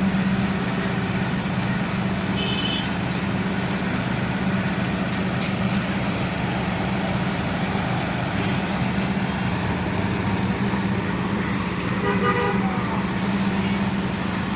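Heavy vehicle or machinery engine running steadily with a deep hum. Two short horn-like toots sound over it, a brief high one about two and a half seconds in and a longer one about twelve seconds in.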